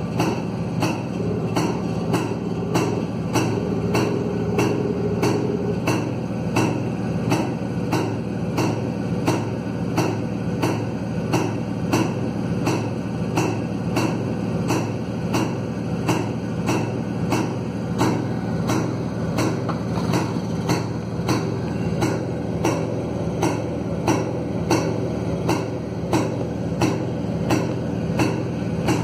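Yezdi motorcycle's single-cylinder two-stroke engine running at a steady idle, with a regular knocking beat about twice a second, on an ignition converted to CDI.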